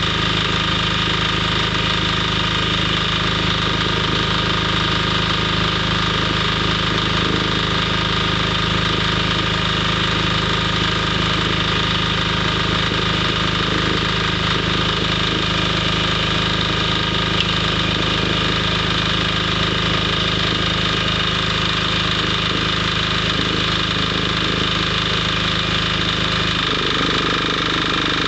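Stick (MMA) welding with a 3.2 mm electrode: a steady crackling arc over a low electrical hum from the welding machine. Shortly before the end the hum drops away.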